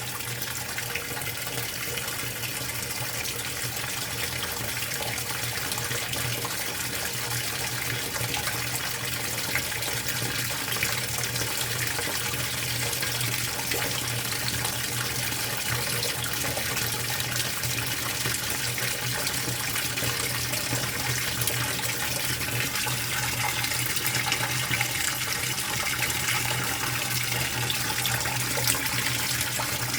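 Water pouring steadily into the tub of a Speed Queen top-load washer as it fills, with a steady low hum under the rush. The sound grows slightly louder as the fill goes on.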